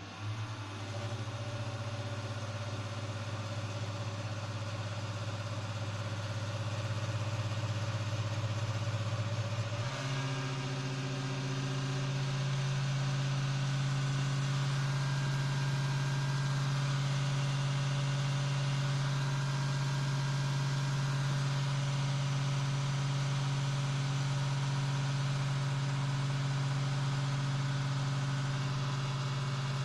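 Desktop computer running with a loud, steady droning hum and a hiss over it, like an idling engine. The hum steps up in pitch and gets a little louder about ten seconds in, as if the fans speed up.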